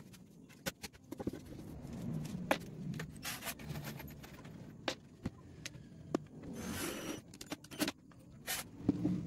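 Wooden workpieces being handled on a workbench: scattered knocks and clicks, with two short scraping sounds as boards are slid across the bench.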